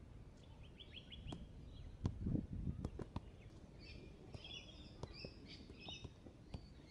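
Small birds chirping, with a series of taps and dull thumps from a football being flicked and kicked off the feet, loudest about two to three seconds in.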